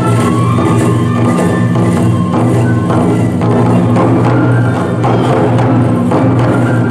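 Traditional Japanese tiger-dance (toramai) festival music: large barrel drums beating a steady rhythm, with a high bamboo-flute melody over it.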